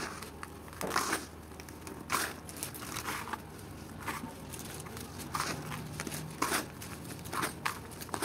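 Red dirt being squeezed and crumbled by hand in a tub: irregular gritty crunches, roughly one a second, with the crumbs rustling between them.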